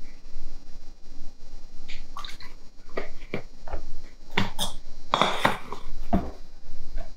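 Liquid glaze poured from a plastic bottle into a plastic tub, then a string of plastic knocks and clatters as the bottle is lifted, handled and set down, loudest about five seconds in.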